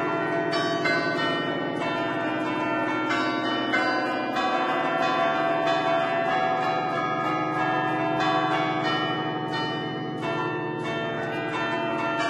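Barigozzi's ten-bell concerto in A, cast in 1950, played by hand from a baton keyboard: the clappers strike the bells one after another in a quick traditional allegrezza tune, each new note ringing over the last.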